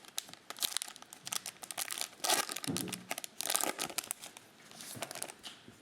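Crinkling and rustling of trading card pack wrappers and plastic being handled, in irregular crackly bursts.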